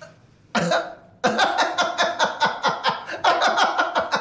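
A man laughing hard: a short breathy burst about half a second in, then a long run of rapid ha-ha pulses from about a second in.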